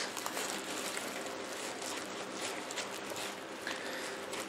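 Faint rustling and crinkling of paper wrapping as it is peeled off a small potted orchid's pot and handled, over a steady low hiss.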